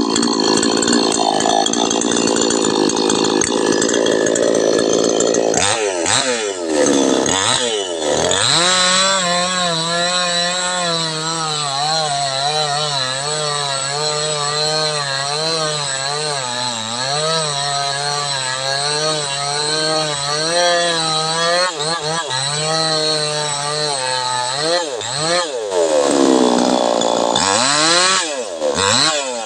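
Petrol chainsaw engine cutting through wood for the first few seconds, then revving up and down. It runs at a steady high speed with a slightly wavering pitch for most of the time, and revs up and down again near the end.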